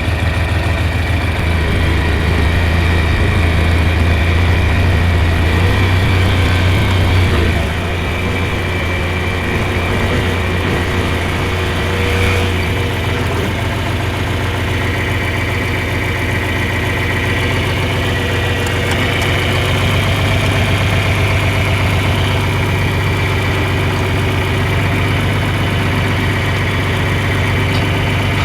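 John Deere 4020 tractor engine running steadily, driving a three-point post hole digger through its PTO, with a higher whine over the engine note; the sound drops a little about seven seconds in. The auger is boring into dry, hard-packed rocky ground and making little progress.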